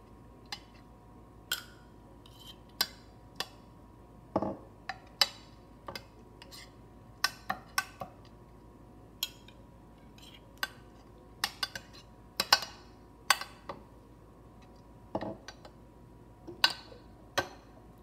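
A spoon clinking, tapping and scraping against a glass casserole dish while spreading a thin layer of tomato sauce: a couple of dozen irregular sharp clinks over a faint steady hum.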